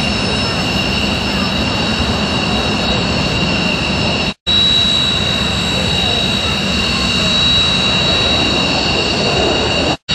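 Jet engines of fighter aircraft taxiing at idle: a steady, loud whine with several high, steady tones over a rushing noise. It is broken by a brief dropout about four seconds in.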